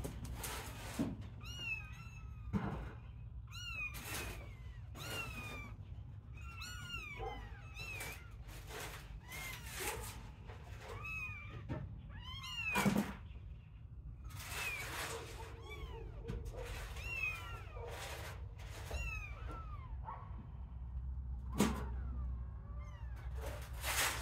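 Young kittens mewing over and over, thin high calls that rise and fall, often several close together or overlapping.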